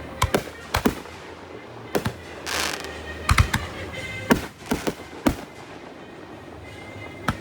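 Fireworks bursting overhead: about a dozen sharp bangs at irregular intervals, some in quick pairs and triplets, with a short hiss about two and a half seconds in. Music plays steadily underneath.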